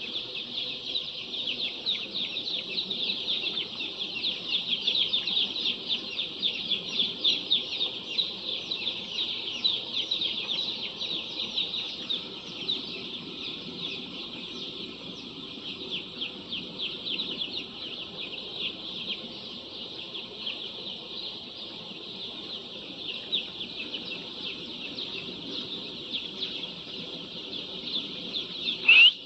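A large flock of chickens calling together: a dense, continuous chorus of high-pitched peeping, with fainter lower clucking underneath. One louder call rings out near the end.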